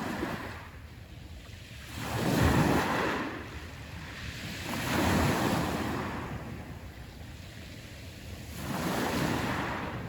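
Sea waves breaking on the shore and washing back, in three surges a few seconds apart; the loudest comes a couple of seconds in.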